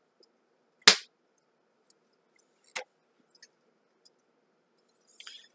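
Metal lid on a glass pickle jar being twisted and worked open by hand: one sharp snap about a second in, a softer click near the middle, then a short rustle near the end.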